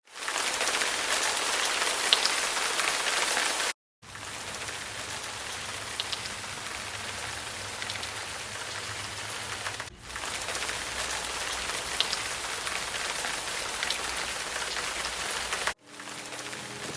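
Steady rain falling: an even hiss with scattered faint drop ticks. It is several recordings joined together, cutting out completely for a moment about four seconds in, and changing level abruptly near ten and near sixteen seconds.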